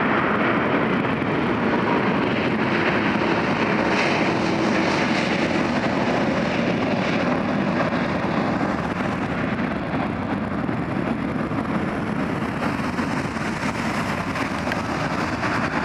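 Jet airliner's engines running as it passes along the runway: a steady, loud, continuous rush that eases a little in the second half.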